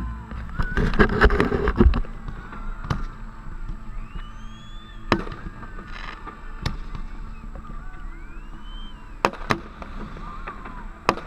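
Fireworks going off: a dense burst of crackling in the first couple of seconds, then single sharp bangs every second or two, with whistling tones that rise and fall between them.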